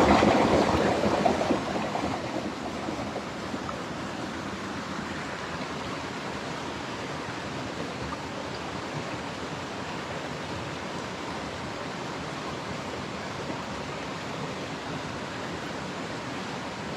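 Small hill stream running steadily, a shallow rushing water sound; a louder rush at the start dies down over the first couple of seconds.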